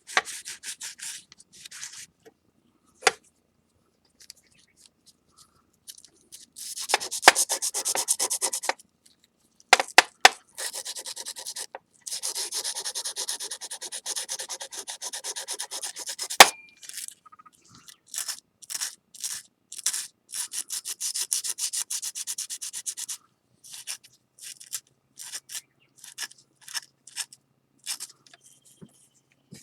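Fine sandpaper rubbing on a glazed stoneware plate, cleaning lacquer off the surface. It comes as short strokes and longer runs of quick back-and-forth rubbing, with a quiet pause a few seconds in.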